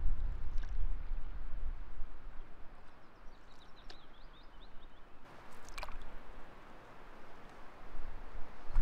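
Wind buffeting the microphone at the start and again near the end, over a canoe gliding on a lake. About six seconds in, a paddle dips into the water with a splash and drip, and faint high chirps come around three to four seconds in.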